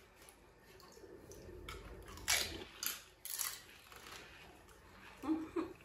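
Crisp pani puri shells crunching as they are bitten and chewed, with three loud crunches between about two and three and a half seconds in.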